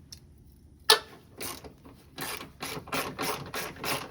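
Hand ratchet wrench loosening radiator mounting bolts: a single sharp click about a second in, then repeated runs of ratchet clicks.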